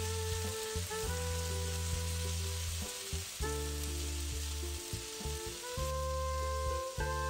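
Block of spice-marinated paneer sizzling as it fries in a non-stick pan, a steady hiss, under background music of long held chords that change every second or two.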